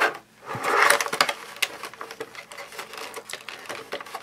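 Hard plastic toy pieces and molds clicking and rattling as they are handled.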